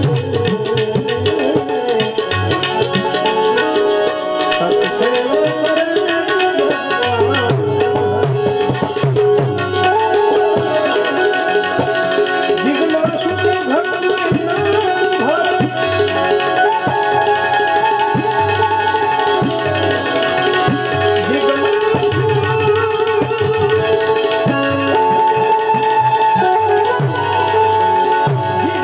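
Two tablas playing a dense run of strokes under a harmonium's held melody, with no singing: an instrumental passage of Gujarati santvani devotional music.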